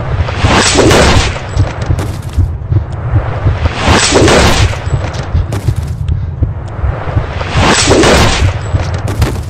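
Action-film soundtrack: a dense, pulsing bass beat with three big whooshing swells about every three and a half seconds, and scattered sharp hits.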